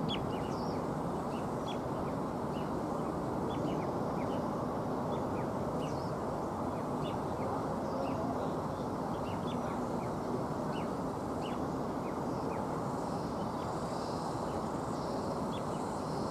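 Small birds chirping repeatedly in short, high, falling notes over a steady low noise of distant airport activity.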